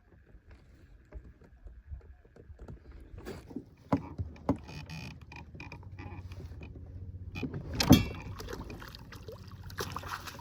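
Knocks and clatter of things handled aboard a small boat, the loudest knock about eight seconds in, over a low steady hum.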